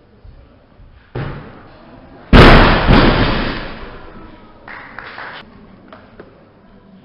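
A barbell loaded with red 25 kg rubber competition bumper plates is dropped from overhead onto the wooden lifting platform. It lands with a loud crash just over two seconds in that dies away over about a second and a half. A shorter sharp sound comes about a second before it.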